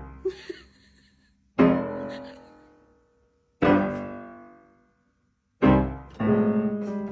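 Loud piano chords struck about every two seconds, each left to ring and fade away. A fourth chord near the end runs on into a held note.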